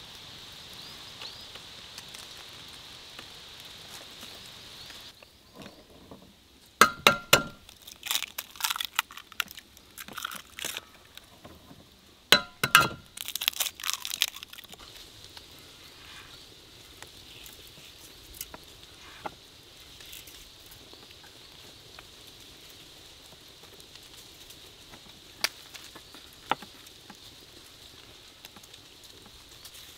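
Eggs being cracked against the rim of an enamel bowl, twice. Each time a sharp knock with a brief ring is followed by a run of small crackling clicks as the shell is broken open. Two single light clicks come near the end.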